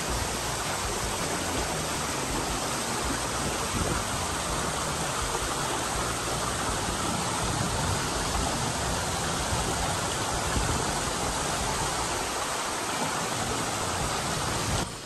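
River water running over rocks: a steady rushing noise that cuts off abruptly near the end.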